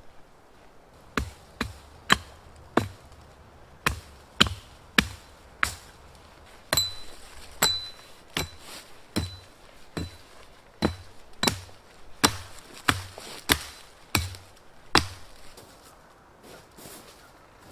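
A hand tool striking repeatedly: about twenty sharp blows at a steady working pace, one to two a second, stopping about 15 seconds in. Several blows in the middle leave a short high metallic ring.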